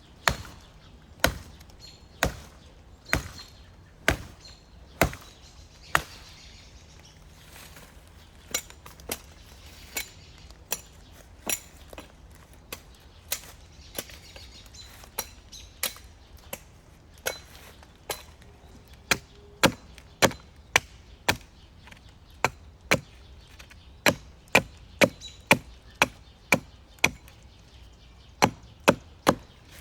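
Wood being chopped by hand with a blade, a long series of sharp separate strikes. They come at about one a second at first, then lighter and less regular, with quicker runs of about two a second in the second half.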